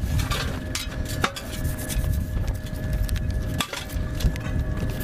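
A few sharp metallic clicks and clinks as parts of an M777 howitzer are handled, over a steady low rumble with a faint steady whine.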